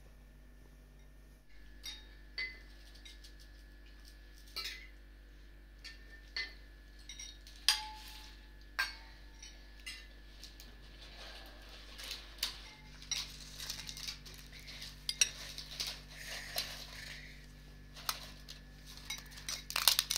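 Metal spoons clinking now and then against ceramic bowls, with the rustle of thin flatbread being torn into a bowl of broth.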